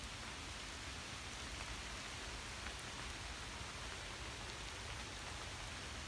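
Rain falling steadily: an even hiss with a low rumble underneath.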